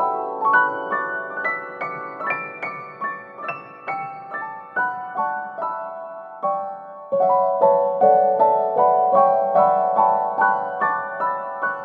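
Background music: gentle piano notes played one after another in rising runs, growing louder again about seven seconds in.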